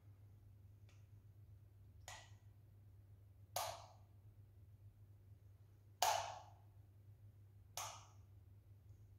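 A few sharp knocks or taps, five in all at uneven gaps, the loudest about six seconds in, over a faint steady low hum.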